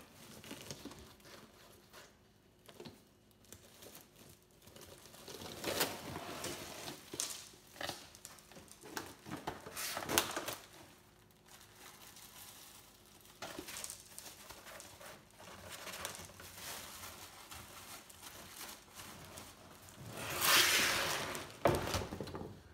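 Old vinyl upholstery being torn and peeled off a boat seat cushion in irregular rips and rustles, the cover having been lightly scored so that it rips away. The loudest sound is a longer crinkle of plastic sheeting a little before the end.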